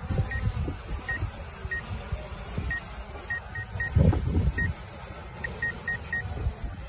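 Wind buffeting the microphone in uneven low rumbling gusts, loudest about four seconds in, with short high electronic beeps at one pitch repeating at uneven intervals.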